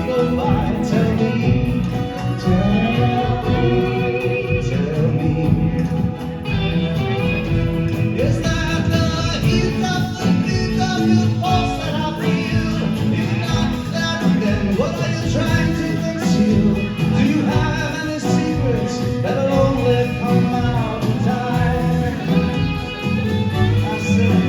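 Live band playing a folk-rock song, with guitars, bass and drums under a sliding melodic lead line.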